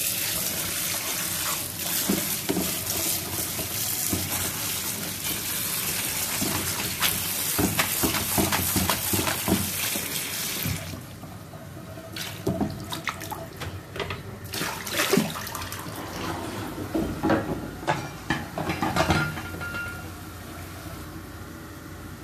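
Kitchen tap running as fresh green chilies are rinsed in a plastic colander. The water shuts off about halfway through, followed by scattered knocks and rattles as the wet chilies and colander are handled.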